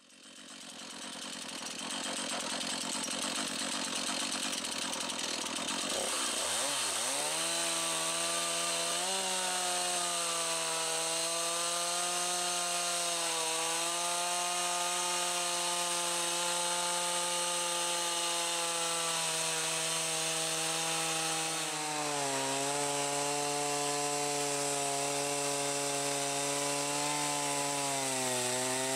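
Chainsaw engine running at high revs while cutting wood. It starts with a hissing noise, and about six seconds in its pitch swoops down and climbs back to a steady high note. The note then sags a little twice later on as the saw takes load.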